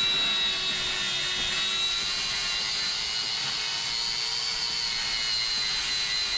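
Electric grinding tool running steadily at high speed against a boat's fibreglass hull, a constant high whine as it grinds through the bottom paint and gelcoat down to the laminate.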